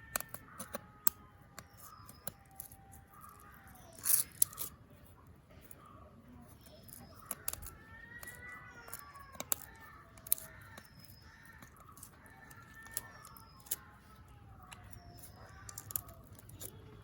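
Irregular sharp clicks and scrapes of fish being cleaned by hand, the loudest about a second in, around four seconds in, near ten seconds and near sixteen seconds. Crows caw and small birds chirp in the background.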